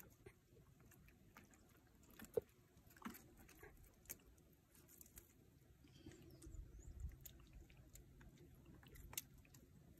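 Near silence with sparse faint clicks and rustles: hands picking a tilapia out of a nylon trammel net.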